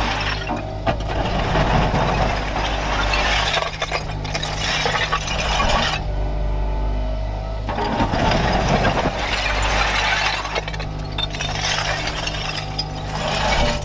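Kubota KX61-3 mini excavator's diesel engine running steadily, with two long stretches of rushing, clattering noise, each about five seconds, as the machine works its hydraulics.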